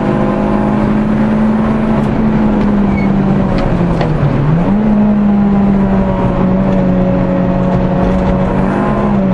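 Citroën Saxo VTS four-cylinder engine running hard at high, steady revs, heard from inside the cabin at track speed with road and wind noise. The engine note sags briefly about four seconds in and climbs straight back to the same pitch.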